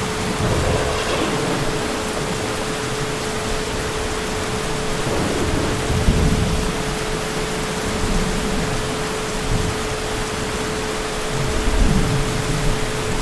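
Heavy rain falling steadily, with distant thunder rumbling low three times: about a second in, around the middle, and near the end. A faint steady tone hums underneath.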